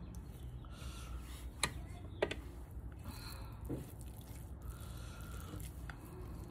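Quiet food handling: a few soft clicks of a fork against a ceramic plate, and the soft squish of rice and greens being mixed by hand, over a low steady hum.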